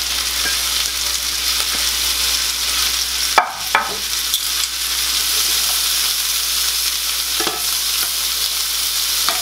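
Chopped onions sizzling and frying in a hot skillet as they are stirred, with one sharp clack a little over three seconds in.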